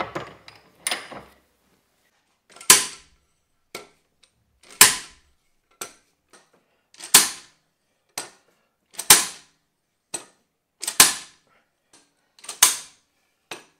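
Slide hammer on a diesel injector: the weight is driven back hard against its stop again and again to pull the seized injector out of the engine. Sharp metallic clanks, six heavy strikes about two seconds apart, with lighter knocks between them.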